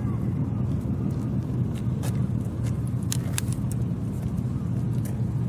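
A steady low outdoor rumble, with a few sharp clicks about two and three seconds in as a small mackerel is reeled up and lifted on a fishing rod.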